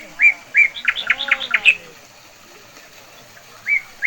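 A songbird sings a short phrase: a few clear notes, then a quick trill-like run that climbs higher. It starts the same phrase again near the end. A faint voice can be heard under the first phrase.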